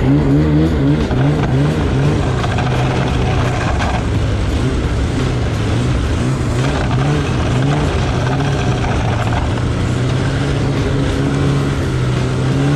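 Polaris Switchback Assault snowmobile's two-stroke engine running under way, its pitch rising and falling in short repeated swells as the throttle is worked.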